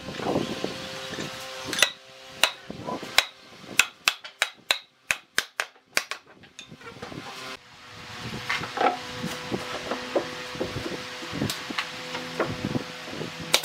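Wooden mallet striking pine boards, driving them together along their joint: a run of sharp wooden knocks, about one to two a second. After about seven seconds the knocks give way to a steady hum with scattered lighter knocks of wood.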